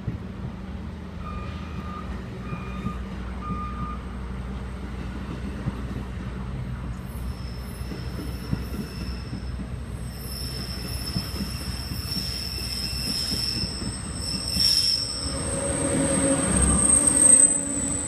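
New Jersey Transit double-deck commuter coaches rolling past with a steady rumble of wheels on rail, as the train departs. Three short beeps sound in the first few seconds. A high-pitched wheel squeal comes in about seven seconds in and grows louder toward the end as the last cars pass.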